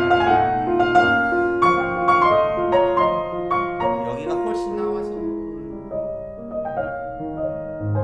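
Steinway grand piano played: a slow singing melody of single notes over a sustained left-hand accompaniment, with a low bass note struck near the end.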